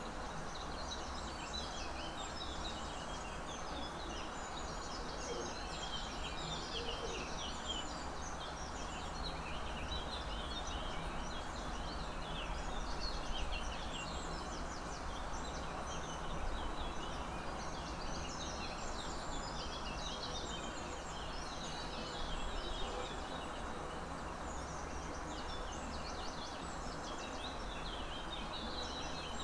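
Outdoor ambience of many small birds chirping and twittering without a break, over a steady background noise.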